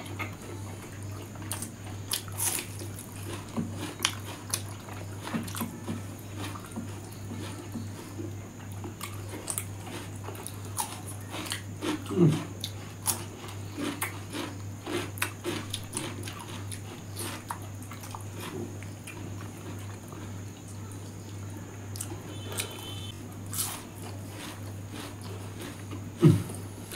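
Close-miked eating sounds: irregular chewing, lip smacks and small wet clicks as two people eat rice and pork curry by hand, with a couple of louder mouth sounds about 12 seconds in and near the end. A steady low hum runs underneath.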